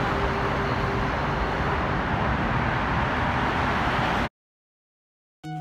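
Steady rush of freeway traffic, vehicles passing at speed, which cuts off suddenly about four seconds in, followed by a second of silence.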